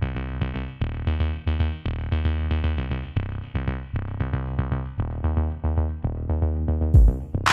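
Electronic background music with a steady beat: repeated synthesizer notes over a drum-machine bass. Near the end a heavy bass hit and bright cymbal-like swishes come in.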